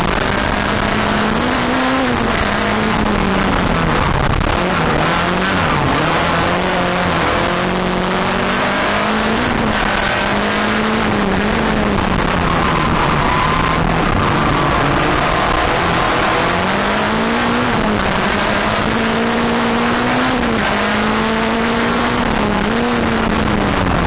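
Skoda Fabia rallycross car's engine heard from inside the cabin while racing, running hard. Its pitch climbs and drops several times as the driver accelerates, shifts and lifts, over steady road noise.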